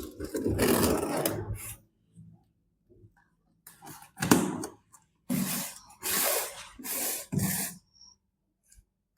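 A cardboard box is being handled and opened, with rubbing and scraping: one long stretch, then several shorter bursts.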